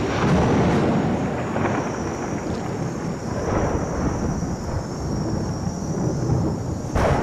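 Thunderstorm: thunder rumbling and rolling over a steady wash of rain, with a sharp thunderclap near the end.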